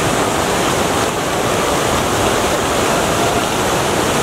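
Fountain jets splashing into a large pool: a steady, even rush of falling water.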